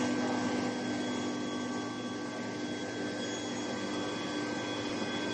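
Steady running noise of a steel pipe induction heating line: a constant low hum under an even hiss, with a few steady high whining tones.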